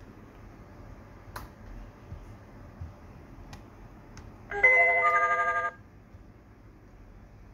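Electronic chime from the TL700W smart lock: a short run of beep tones stepping down in pitch, lasting about a second, about halfway through. A few faint clicks come before it.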